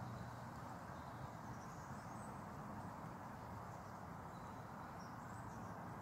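Faint, steady outdoor background noise with a low hum, and a few faint high-pitched chirps about two seconds in and again near the end.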